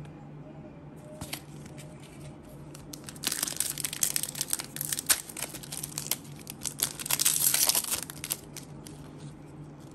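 Foil wrapper of a Pokémon trading-card booster pack crinkling and tearing as it is ripped open by hand. The crackling starts about three seconds in and goes on in bursts, loudest near the end, before stopping about a second and a half before the end, over a faint steady hum.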